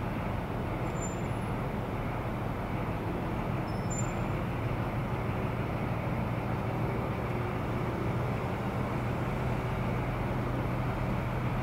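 Steady low drone of locomotives running in a rail yard, with a constant low hum and no separate knocks or horn.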